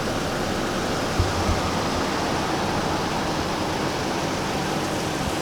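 Steady hiss of rain falling, with a couple of low thuds about a second in.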